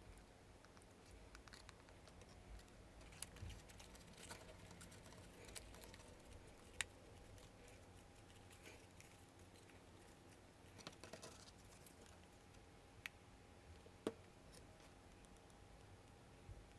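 Near silence broken by faint scattered taps, clicks and light rustling of stiff card pieces being handled and pressed into place, with a few sharper single ticks.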